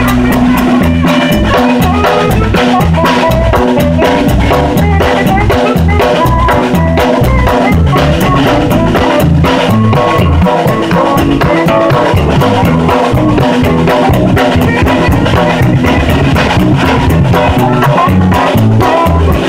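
Live band music with a drum kit and saxophone, heard from right beside the kit, so that the drums and cymbals sit loud and close in the mix.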